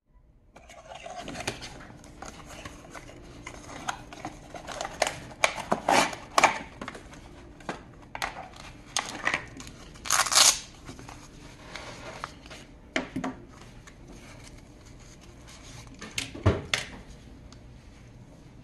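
Hands unpacking a multitool and its packaging: a cardboard box, a nylon pouch and a small plastic bit case handled against a tabletop, with scattered rustles, scrapes and sharp clicks. The loudest is a half-second rasp about ten seconds in, while the pouch is handled.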